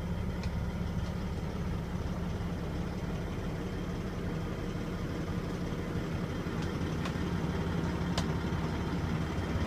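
Heavy truck diesel engine idling steadily, a low even hum, with a few faint clicks near the end.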